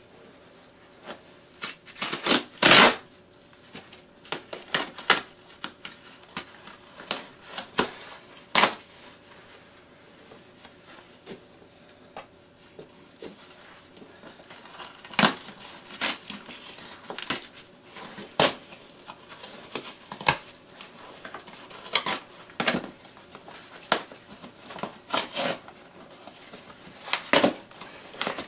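Cardboard box and its packaging being handled: flaps pulled open and folded, with irregular rustles, scrapes and knocks of cardboard, the loudest about three seconds in.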